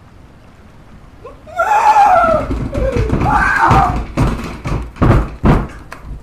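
A man's loud, wordless, high-pitched yell that slides down in pitch, then a run of five or six hard knocks or thumps about half a second apart.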